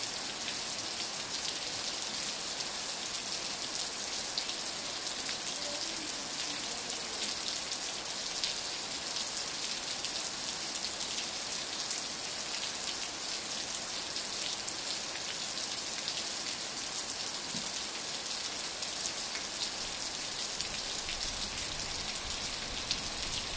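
Steady rain falling: an even, constant hiss with many scattered, sharper drop ticks.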